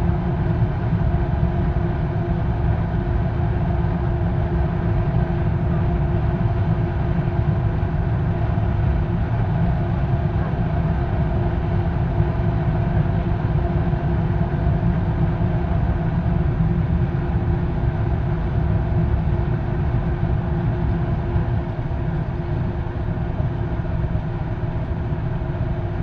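Diesel-fired foundry furnace running at full heat while it melts iron: a steady, deep roar from the burner and its air blower, with a faint even hum over it.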